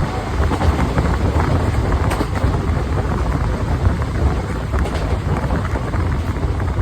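Express train hauled by an electric locomotive passing at high speed: a steady rumble of wheels on rail with a rush of air buffeting the microphone, and no horn.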